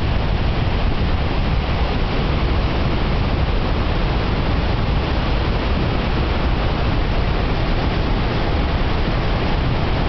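Floodwater of the Numedalslågen river rushing through whitewater rapids: a loud, steady rush with no break.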